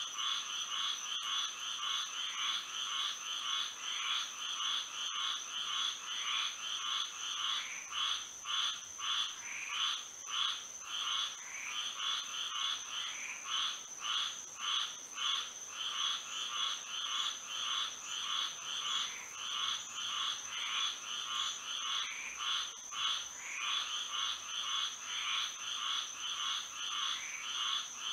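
Chorus of frogs calling, with many overlapping pulsed calls that swell about twice a second, over a steady high-pitched tone.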